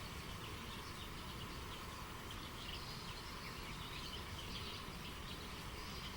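River water running steadily, with many small birds chirping in short calls throughout.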